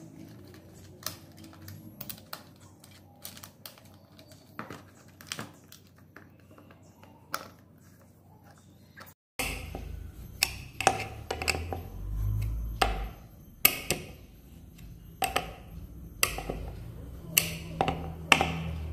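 Irregular clicks and light knocks of small metal and plastic parts and a hand tool as the blade guard's clamp is bolted onto a brush cutter's shaft. The clicks come sparsely at first and grow louder and more frequent after about nine seconds.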